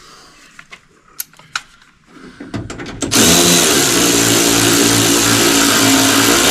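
Light handling clicks, then a handheld power drill-driver starts sharply about three seconds in and runs steadily, driving a fastener on a door's window hardware.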